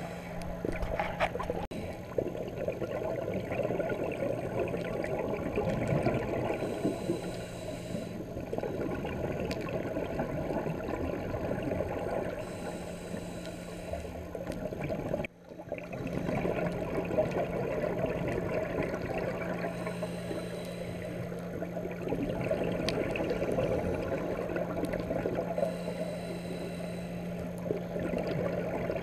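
Underwater sound through a diver's camera: the scuba diver's breathing through a regulator in a slow cycle, a hiss about every six seconds, with bubbling rumble and a steady low hum underneath. It drops out briefly about halfway through.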